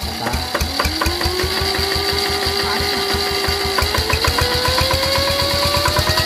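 Yanmar TF65 single-cylinder diesel engine running with a steady beat, joined about half a second in by the high 'nging' whine of the sound device fitted to it; the whine holds one pitch, then climbs steadily in pitch from about four seconds in.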